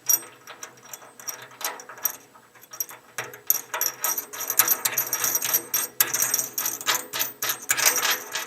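Metal clinking and a quick run of clicks as a nut is run onto a bolt and tightened against fender washers, plugging a vent hole in the steel grill body. The clicking grows busier and steadier about three seconds in.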